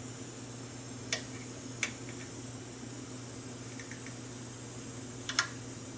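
Small clicks of wires and tools being handled at a soldering bench: one about a second in, another just under two seconds in, and a double click near the end, over a steady hiss and a low hum.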